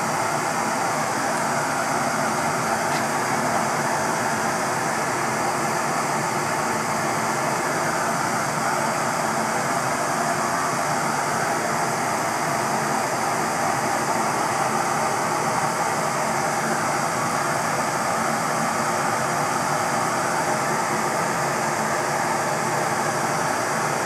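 Two handheld gas torches burning steadily into a small crucible furnace, a constant, even rush of flame noise as they heat a gold charge to melting.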